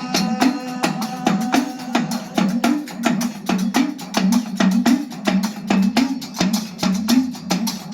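Dak, the hourglass folk drum of Gujarati dakla, played in a fast, even rhythm, its low pitch bending up and down from stroke to stroke.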